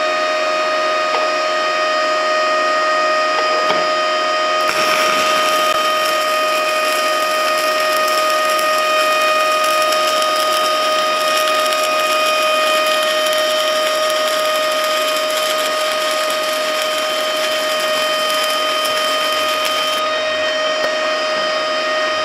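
Stick-welding arc on a 6013 electrode crackling steadily as a zigzag weave bead is run on flat steel plate. The arc strikes about four and a half seconds in and breaks off about two seconds before the end. A steady hum with thin whining tones lies underneath throughout.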